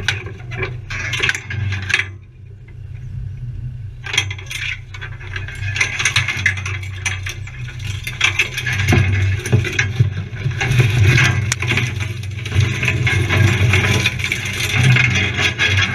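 An off-road 4x4 crawling over a rough stony track: a steady low engine drone with a continual clatter of rattles and knocks from the jolting vehicle, briefly quieter about two seconds in.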